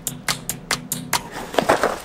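A quick run of about eight sharp clicks over a low hum. About a second and a half in, this gives way to metal fidget spinners clinking and rattling together as a box of them is handled.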